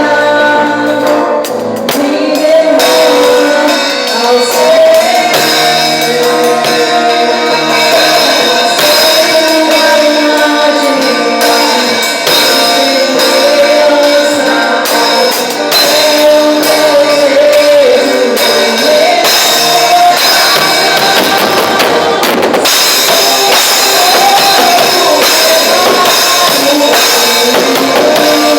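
Portuguese-language worship music: a band with drum kit and tambourine playing under a sung melody.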